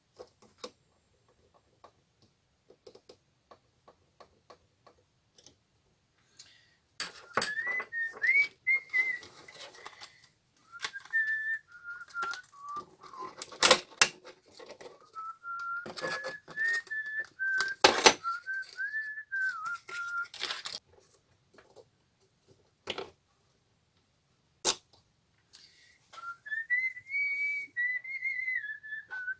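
A person whistling a wandering tune in several phrases with pauses, starting about a quarter of the way in. Sharp clicks and knocks from handling small computer parts cut in now and then, the loudest two about halfway through.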